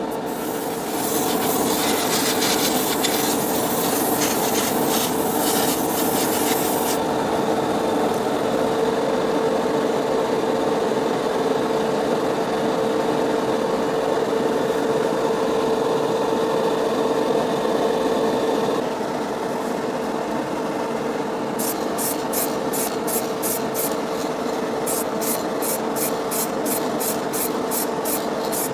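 A small motor hums steadily while something rubs and rasps against a surface. In the last seconds, quick regular scraping strokes come about three or four a second.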